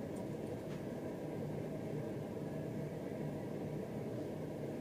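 Steady low hum and hiss of background room noise, unchanging throughout, with no distinct events.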